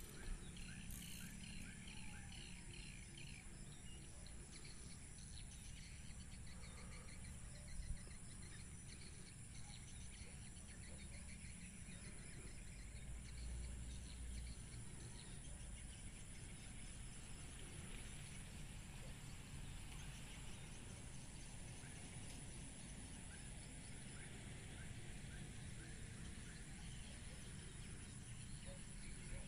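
Quiet open-air ambience: birds chirping for the first several seconds, a steady high-pitched insect drone, and a low rumble underneath. A single brief knock comes about eight seconds in.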